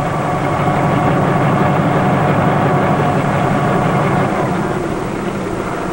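Bell 47 helicopter's piston engine and rotor running on the ground, a steady, rapidly pulsing drone that eases off a little in the last couple of seconds as the rotor slows.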